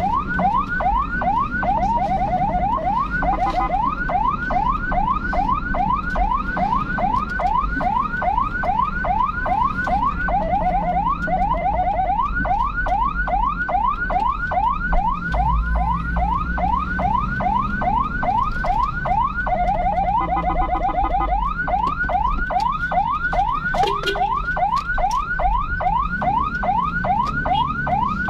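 An electronic siren sounding a rapid rising whoop, about three sweeps a second, switching every several seconds briefly to a faster, lower pattern, over a steady low vehicle rumble.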